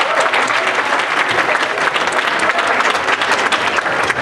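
An audience applauding: many hands clapping at once, a dense and steady patter.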